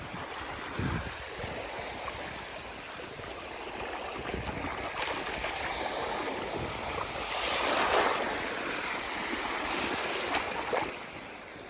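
Shallow seawater lapping and sloshing in the wind, an even rushing noise that swells briefly about eight seconds in.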